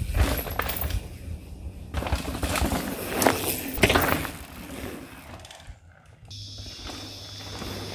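Mountain bike rolling over a dirt trail: knobby tyres crunching and the bike clattering over bumps, loudest as it passes close about four seconds in, then fading as it rides away. About six seconds in, a steady high hiss with a low hum begins.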